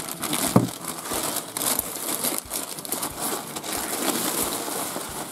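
Clear plastic packaging crinkling and crackling as a fabric backpack is pulled out of its bag, with one louder snap about half a second in.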